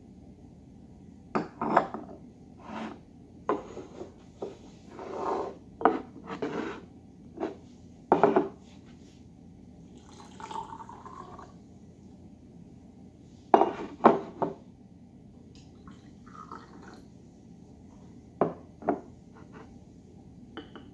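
Ceramic and glass gongfu teaware (gaiwan, lid, glass pitcher and cups) clinking and knocking as the pieces are handled and set down on a tabletop, in a dozen or so separate sharp clinks. There is a short pour of liquid about ten seconds in.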